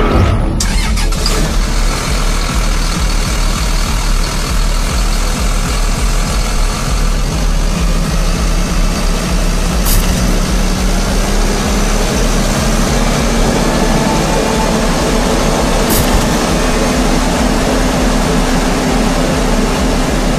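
Jacto Uniport 3030 self-propelled sprayer's diesel engine starting and then running steadily, its pitch rising a little partway through. There are a couple of sharp clicks later on.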